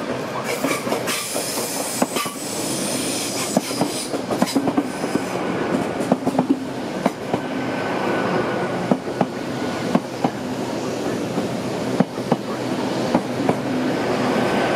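Great Western Railway Class 800 bi-mode train pulling into the platform on its underfloor diesel engines. Steady running and rolling noise with irregular clicks of the wheels over rail joints and points, and a faint thin squeal from the wheels or brakes in the second half.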